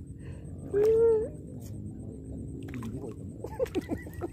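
A single short call about a second in, held at one pitch for about half a second and turning up at its end, over a low steady rumble.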